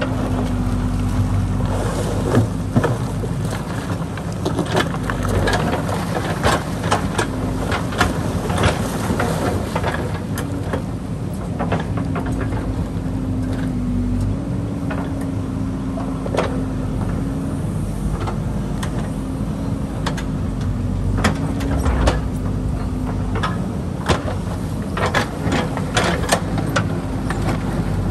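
JCB backhoe loader's diesel engine running steadily under load, its pitch shifting slightly as the hydraulics work the arm. Its bucket scrapes through wet gravel and stones, with many sharp knocks and clatters of rock against steel.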